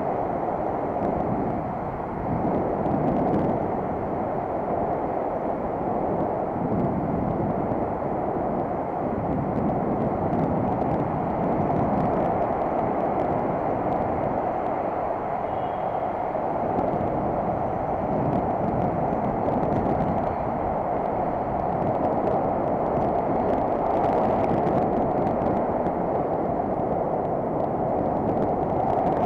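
Steady rushing noise of a bicycle in motion on a paved path: wind buffeting the bike-mounted camera's microphone over the hum of tyres rolling on concrete.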